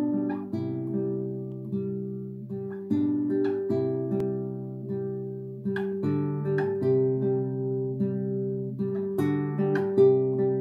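Classical nylon-string guitar playing a slow piece of plucked chords over sustained, ringing bass notes, with a new chord struck about every half second to second.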